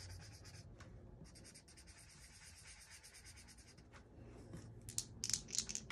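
Marker scribbling on paper in rapid back-and-forth strokes, colouring in squares on a printed game sheet; it pauses briefly twice. A few sharp clicks come near the end.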